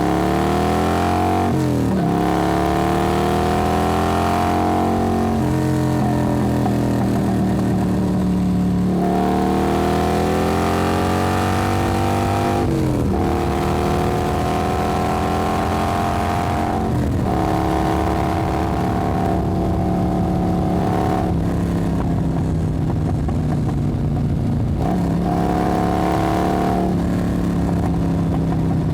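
Motorcycle engine under way, pulling up through the gears: the pitch climbs, then drops sharply at each shift, about every three to four seconds. In the second half it runs more evenly, with shorter dips and rises.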